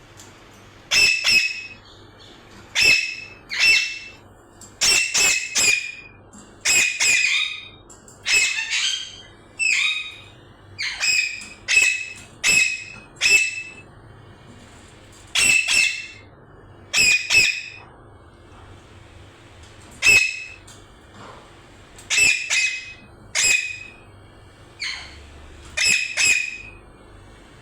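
Pet parrot giving a long run of short, loud, shrill squawks, about two dozen calls mostly a second or less apart, with a short pause past the middle.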